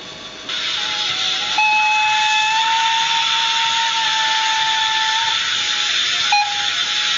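Sound decoder of a Fleischmann HO-scale SBB model locomotive playing its effects through the model's small speaker. A steady hiss starts about half a second in, then a long steady signal blast sounds for nearly four seconds, and a short toot comes near the end.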